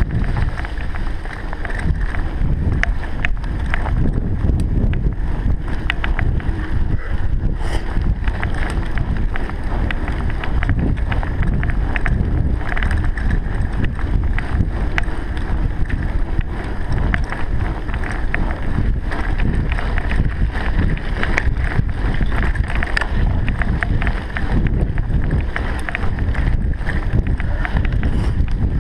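Wind buffeting the microphone in a steady low rumble, with many small clicks and knocks scattered through it.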